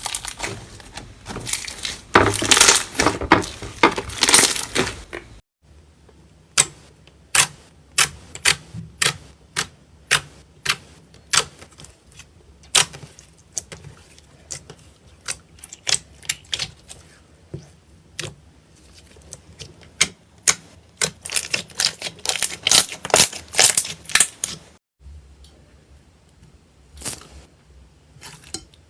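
Slime being pressed and squished by hand, trapped air pockets popping in sharp, irregular clicks. The sound changes abruptly twice, about five seconds in and near the end, as one clip cuts to the next.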